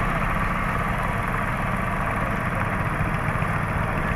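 An engine running steadily at an even speed, with a low, fast, even pulsing.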